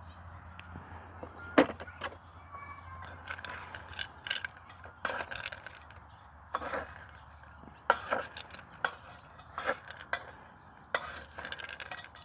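A dog eating boiled chicken and dog food from a bowl, with irregular clinks and clatters of the bowl throughout.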